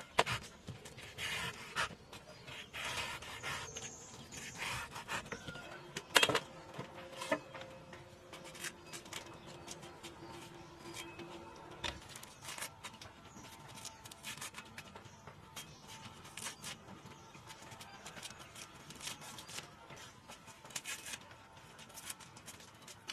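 A kitchen knife cutting and paring the thick peel off a large green fruit: repeated short scraping and crackling strokes as the rind and white pith come away, with a sharp knock about six seconds in.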